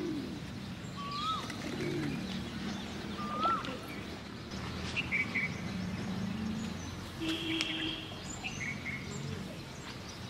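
Wild birds calling: a short whistle that rises then drops, heard twice about two seconds apart, followed by scattered higher chirps, over a low steady hum.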